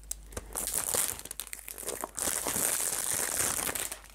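Wrapping on a perfume box being cut and torn open, crinkling and rustling in two stretches with a short lull about two seconds in.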